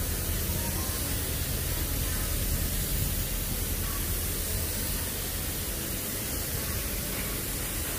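Steady street ambience: an even hiss with a low rumble that eases off about halfway, and faint distant voices.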